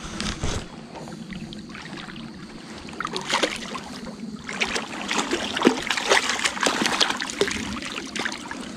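Splashing in shallow creek water as a hooked brown trout thrashes at the surface and is scooped into a landing net, over the steady trickle of the creek. The splashing picks up about three seconds in and is heaviest in the second half.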